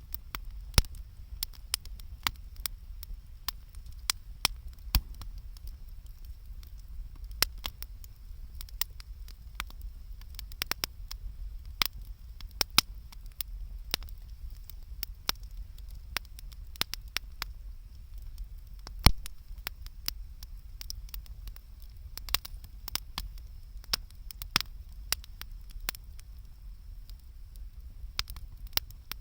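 Wood campfire crackling, with irregular sharp pops and one louder snap about two-thirds of the way through, over a low steady rumble.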